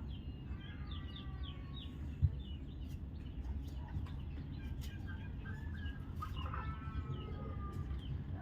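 Birds chirping in quick short runs, with some longer held calls, over a steady low rumble; a single sharp knock a little over two seconds in.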